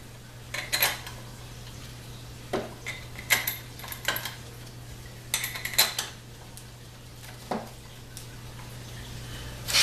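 Steel bolts clinking against the metal of a 4L60-E transmission pump as they are picked up and set into its bolt holes by hand: light metallic clicks in irregular little clusters.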